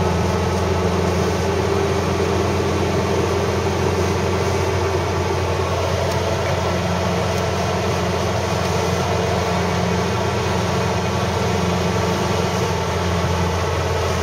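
Citroën DS19's four-cylinder engine and road noise heard from inside the cabin while cruising at steady motorway speed: an even, unchanging drone.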